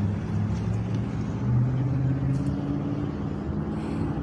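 Engine running with a low steady hum that shifts slightly in pitch, from a passing car or a motorboat.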